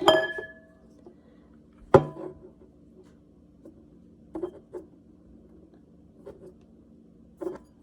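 Eggs being handled and clinking against a bowl: a sharp clink with a short ring at the start and another about two seconds in, then a few soft taps and rubs, over a faint steady hum.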